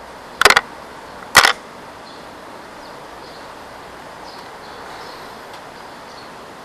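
Two short, sharp clattering knocks about a second apart, followed by a faint steady hiss.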